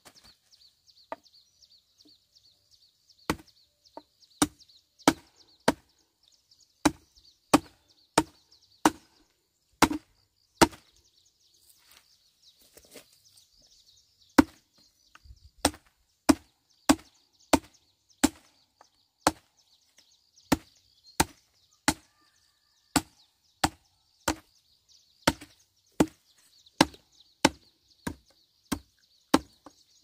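Blade chopping in a steady rhythm, about one and a half strokes a second, each stroke a sharp hit with a dull thud. The chopping starts about three seconds in and pauses briefly near the middle.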